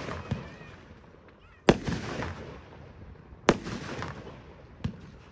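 Aerial firework stars bursting overhead: two sharp bangs about two seconds apart, a smaller one near the end, each trailing off in echo.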